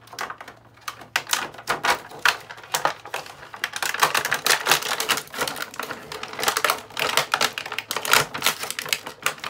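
Clear plastic packaging crinkling and crackling in quick, irregular bursts as an action figure is worked free of it by hand; the crackling gets denser about halfway through.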